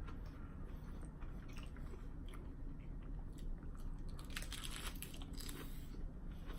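Close-up biting and chewing of an Asian chicken lettuce wrap: crisp, wet crunches of lettuce and vegetables, with a run of louder crunches about four to five seconds in.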